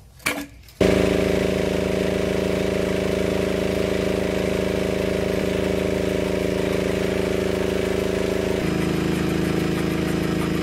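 A metal click from hose couplings, then the Hatz diesel power pack comes in abruptly and runs steadily, its tone shifting slightly near the end.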